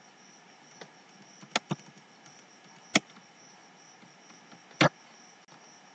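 About five sharp, isolated clicks of a computer keyboard and mouse as code is being edited, spaced irregularly over a faint steady hiss.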